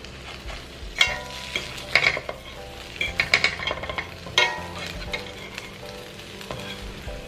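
Oat-and-banana pancake batter frying in butter in a stainless steel pan, sizzling steadily, while a metal spoon stirs and scrapes it, clinking against the pan several times in the first half.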